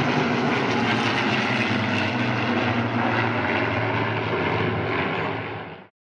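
A formation of six piston-engined warbirds (a de Havilland Mosquito, a Spitfire, a Corsair, a Yak-3 and two P-51 Mustangs) flying past with a steady propeller-engine drone. The drone eases off slightly and then cuts off abruptly near the end.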